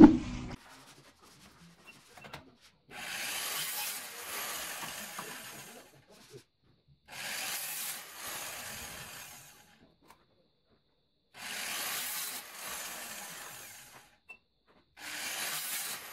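Small electric cut-off saw cutting through a plastic ceiling cornice strip: four cuts of about two to three seconds each with short pauses between, the first starting about three seconds in and the last still going at the end. A brief pitched sound fades out in the first half second.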